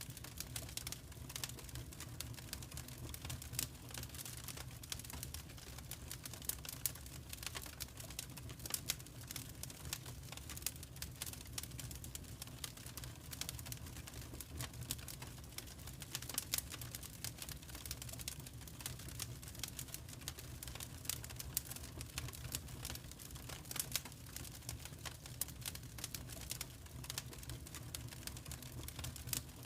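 Fireplace fire crackling: many short, irregular snaps and pops over a steady low rumble of the flames.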